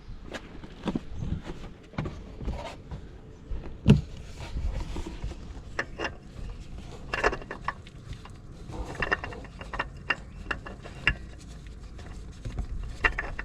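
Scattered clicks, taps and knocks of parts and tools being handled as a new oil filter and drain plug are fitted by hand, with one sharper knock about four seconds in.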